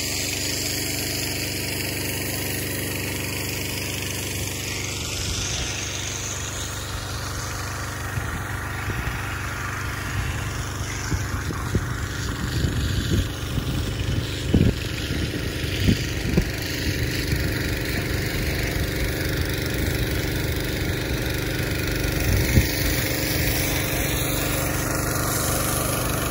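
An engine running steadily at idle, with a cluster of irregular knocks about halfway through.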